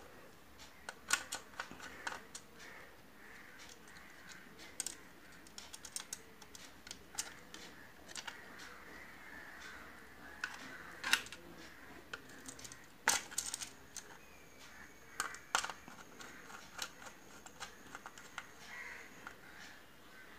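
Scattered small clicks and taps of metal on plastic as wires are worked onto the brass screw terminals of a plastic switchboard, with a few sharper knocks now and then.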